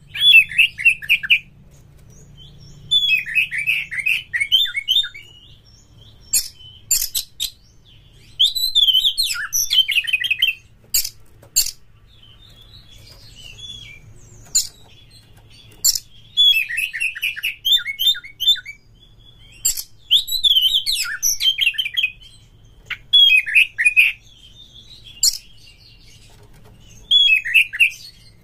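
Oriental magpie-robin singing short bursts of rapid, warbling phrases every few seconds, with sharp high single notes between them.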